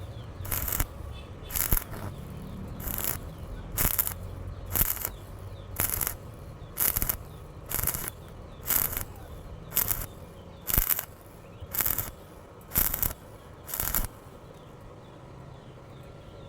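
Stick welding arc from a 2.6 mm E6013 electrode at 80 amps, struck in short bursts about once a second: spot welding thin metal, with the electrode pulled away between each tack. The bursts stop about two seconds before the end.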